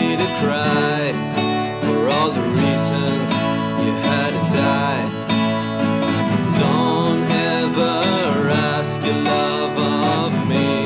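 Two acoustic guitars playing a song together, with a man's voice singing over them in phrases.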